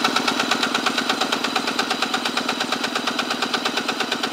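A 1999 Polaris SLH 700 twin-cylinder two-stroke engine being cranked over by its electric starter during a compression test. It makes a rapid, even chugging beat of compression pulses, and the magneto-side cylinder builds to about 139 psi.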